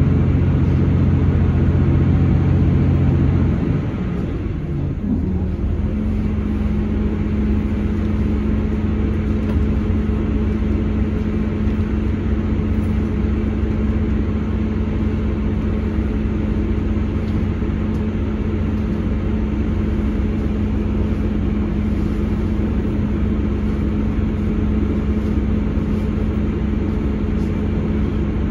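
Class 159 Sprinter diesel multiple unit heard from inside the passenger saloon: its underfloor Cummins diesel engine and transmission drone over a rumble of wheels on rail. About four seconds in, the deep engine note drops away and slides in pitch, then a steady, higher hum settles.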